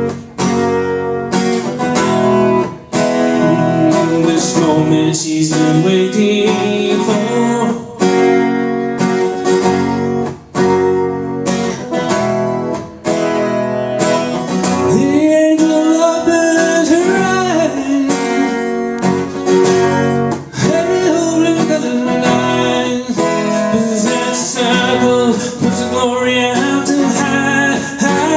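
Acoustic guitar strummed in a steady rhythm, with a voice singing over it in the second half.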